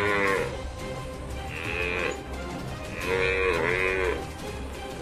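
Buffalo lowing: three drawn-out moo-like calls, one trailing off at the start, a shorter one about a second and a half in, and a longer two-part call about three seconds in.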